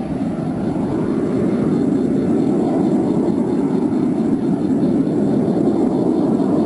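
Airplane flying over, a steady, loud engine noise that swells a little over the first two seconds and then holds.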